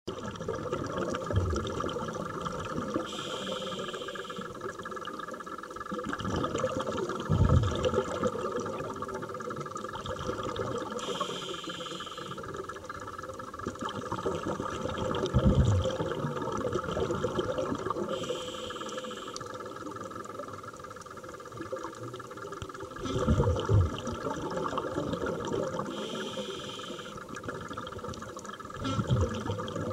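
Scuba diver breathing through a regulator underwater: a hissing inhalation about every seven to eight seconds, each followed a few seconds later by a loud rumbling gush of exhaust bubbles, four breaths in all, over a steady underwater hiss.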